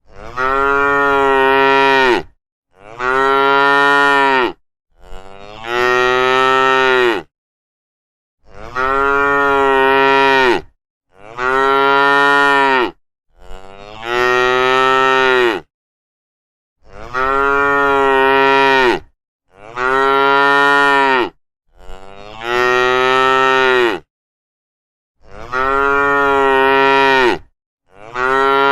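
Cow mooing: about eleven long, steady moos of about two seconds each, in groups of three with dead silence between them, the same three-moo pattern repeating.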